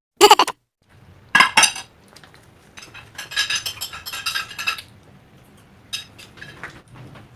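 Metal cutlery clinking and scraping against plates and dishes: two sharp strikes early, then a quick run of clinks, as the plates are cleaned up after the meal.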